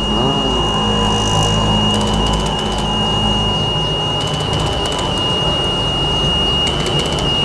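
Homemade sun tracker's motor and control circuit: a steady thin high whine over a low hum, broken by three short runs of quick buzzing pulses and clicks, each about two seconds apart, as the panel is driven round to follow the lamp.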